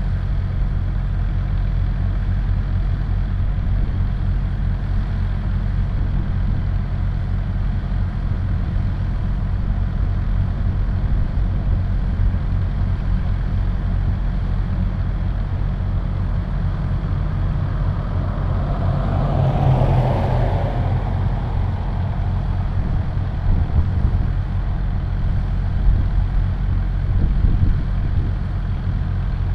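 Vehicle engine idling steadily with a low hum. About two-thirds of the way through, a louder rushing noise swells and fades over a few seconds.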